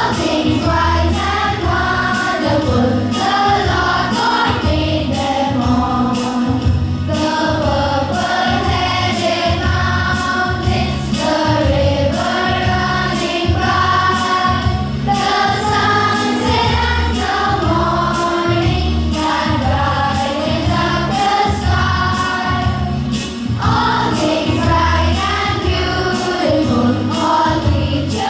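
A group of voices singing a song in chorus over instrumental accompaniment with a steady beat.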